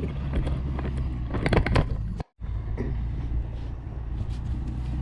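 A steady low engine hum, with a cluster of clicks and knocks about a second and a half in and a brief total dropout just after.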